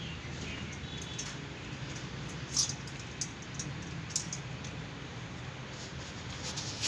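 A few short, sharp scratchy clicks, the loudest near the end, as a cat's claws catch in a fabric blanket while it climbs. A steady low hum runs underneath.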